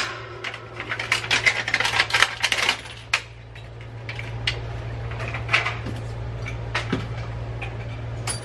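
Clicking and light clatter of small scrap parts and a clear plastic sheet being handled on a worktable, a dense run of clicks for a couple of seconds, then scattered ones. A steady low hum runs underneath.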